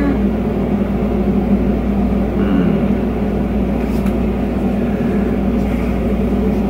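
Steady low hum with an even hiss over it, the sound of a running machine.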